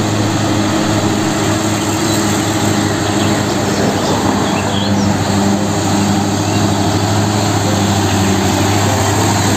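Mitsubishi Fuso dump truck's diesel engine running steadily as the loaded truck drives by, with a low, even drone.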